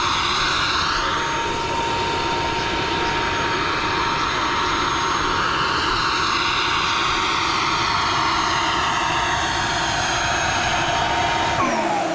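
Small gas turbine of a radio-controlled L-39 Albatros model jet running at low power while it taxis, a steady whine over a loud rush. Near the end the whine falls in pitch as the turbine spools down.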